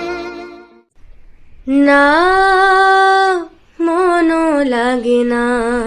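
A woman singing a slow Bengali song: two long held phrases with vibrato, starting after a short pause about two seconds in. Before the pause, a violin note dies away.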